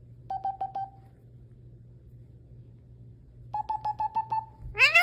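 Pet bird giving quick runs of short, squeaky beeping chirps on one pitch: about five near the start and a longer run of about eight near the end, followed by a rising whistle at the very end.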